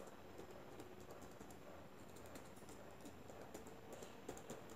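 Faint computer keyboard typing: a quick, irregular run of key clicks.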